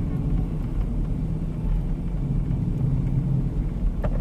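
Steady low rumble of a four-wheel-drive vehicle's engine and tyres heard inside the cab while driving on a snow-covered road, with a short click near the end.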